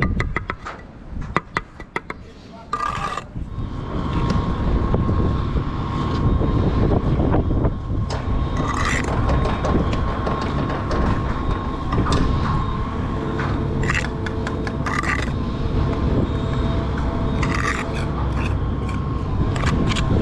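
Bricklaying with a steel trowel: sharp clicks as bricks are tapped and set, then short scrapes of the trowel spreading and cutting mortar. From about three seconds in, a steady low rumble with a faint high whine runs underneath and is the loudest thing.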